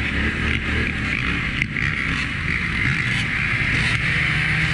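Polaris Sportsman 1000 ATV's twin-cylinder engine running steadily at low speed, with dirt bike engines running close by.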